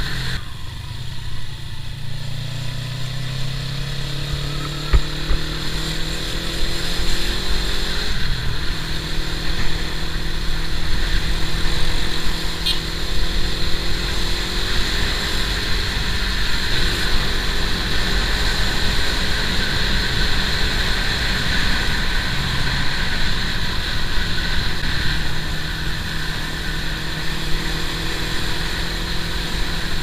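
Motorcycle engine running while riding on the road. Its pitch rises over the first several seconds as it accelerates, breaks off about eight seconds in at a gear change, then holds fairly steady while cruising.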